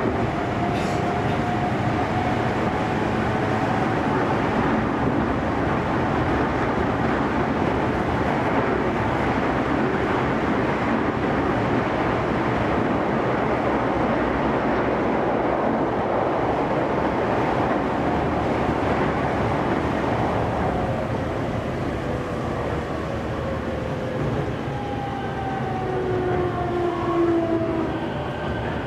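Toei 10-300 series subway train heard from inside the car, running steadily through the tunnel with a dense, even rumble of wheels on track. Over the last few seconds, thin motor tones fall in pitch as the train slows.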